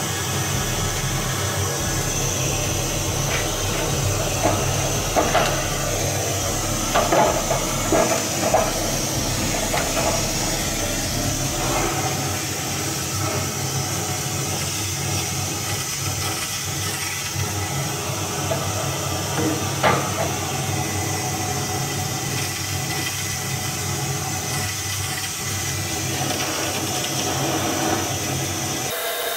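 Hand-held propane torch flame hissing steadily into a smoker's firebox to light split wood logs. Scattered sharp clicks and pops come through it, most of them between about four and nine seconds in, and one more near twenty seconds.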